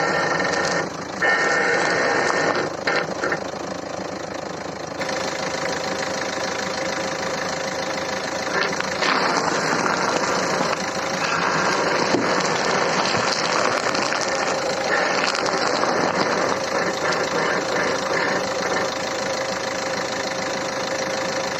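Renault Megane 3 with the engine idling while the steering wheel is turned, and a creak from the front suspension that comes and goes in stretches. The creak comes from worn strut top mount bearings.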